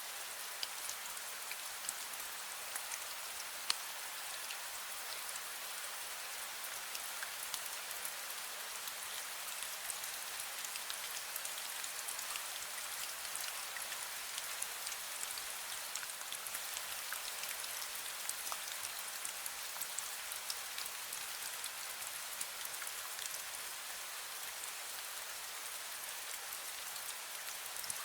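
Light drizzle falling steadily: an even hiss of fine rain dotted with small drop ticks, a few of them louder in the first few seconds.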